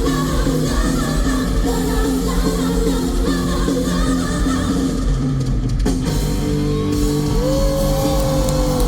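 A live rock band plays with a female lead vocal. Near the end a long held note slides downward.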